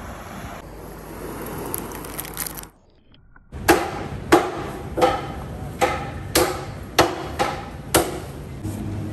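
A butcher's cleaver chopping meat on a wooden block: about eight sharp, ringing chops, roughly one and a half a second. They follow a few seconds of wind and surf noise and a brief gap.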